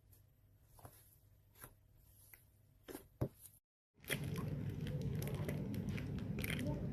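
Slime being pressed and squeezed: a few soft pops and clicks, then, after a sudden cut, a louder run of dense crackling and crunching.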